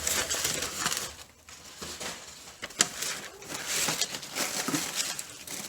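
Packing material rustling and crinkling as a parcel is unwrapped by hand, with a few sharp crackles, one louder near the middle.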